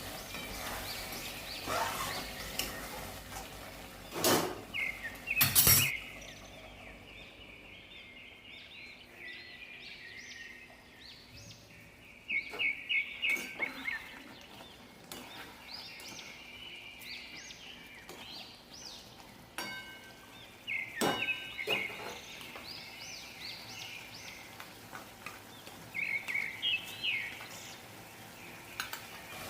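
Small birds chirping in repeated quick series, with a few sharp clinks, the loudest about four and six seconds in and again about twenty-one seconds in.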